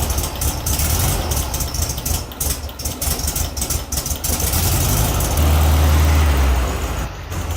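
Volkswagen Beetle 1600's air-cooled flat-four engine running rough with a misfire, not the even sewing-machine sound it should make. It comes up briefly about five seconds in, then settles back.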